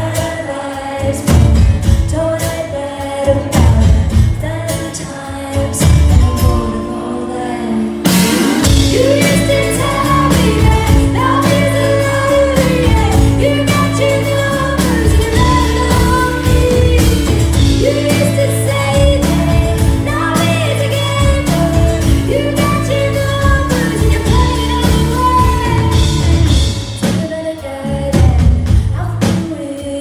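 Live performance of a woman singing with strummed acoustic guitar. About eight seconds in, the full band joins and the sound becomes fuller and steadier, with sustained low bass notes under the voice.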